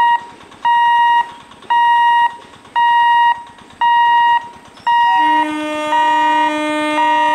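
Level-crossing warning hooter beeping about once a second, each beep a steady high tone. About five seconds in, the approaching EMU train's horn joins with a long, steady blast while the beeping goes on underneath.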